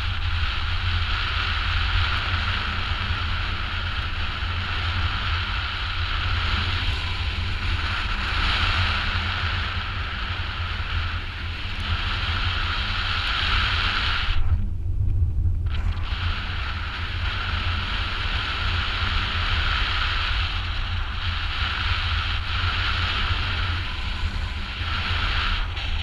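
Rushing air on a GoPro HERO4 Black's microphone in paragliding flight: a steady low buffeting rumble with a hiss over it. About halfway through, the hiss cuts out for a second and a half while the rumble carries on.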